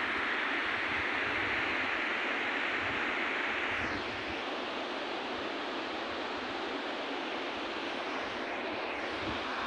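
Steady rushing of a mountain river over its rocky bed, slightly quieter after about four seconds.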